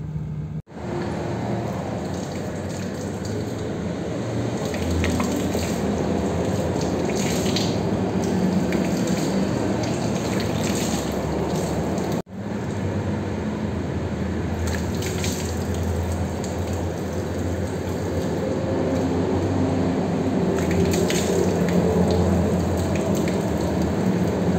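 Water running steadily from a tap and splashing, as during wudu washing before prayer. It cuts out briefly twice.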